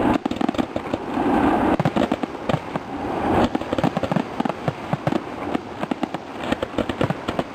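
Fireworks finale: a rapid, unbroken barrage of bangs and crackles, with the reports echoing back off the surrounding mountains.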